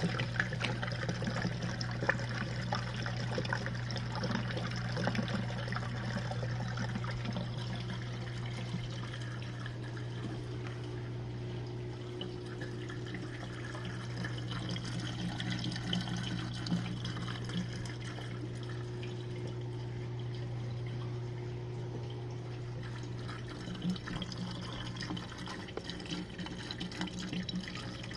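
Jenn-Air dishwasher running its Quick Wash cycle: the pump motor hums steadily while water sprays and splashes inside the tub.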